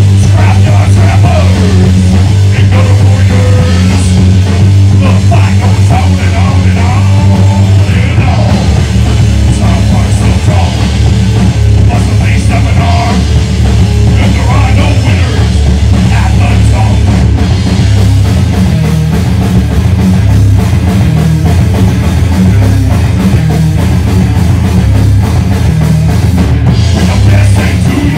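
Heavy rock band playing live at full volume: distorted electric guitar, bass and a drum kit, with the singer's vocals on a handheld microphone.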